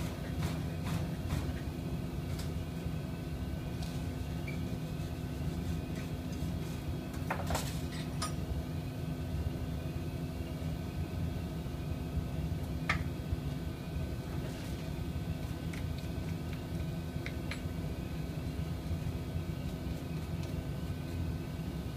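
Steady drone of running plastics-processing machinery, a low hum with a constant tone and a faint rising whine that repeats about once a second. Occasional sharp metallic clinks and taps from metal tools and parts being handled, the loudest a pair about seven and a half seconds in and another near thirteen seconds.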